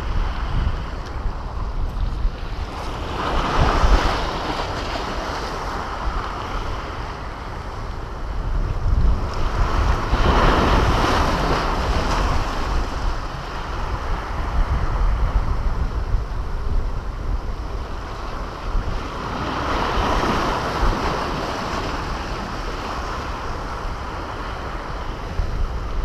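Sea surf washing against the concrete blocks of a breakwater, swelling three times about eight seconds apart, over a steady rumble of wind on the microphone.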